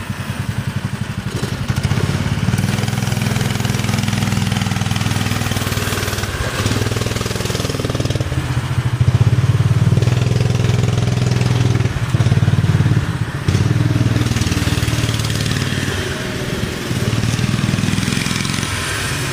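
Small mini bike engine running steadily, its pitch and loudness rising and falling with the throttle.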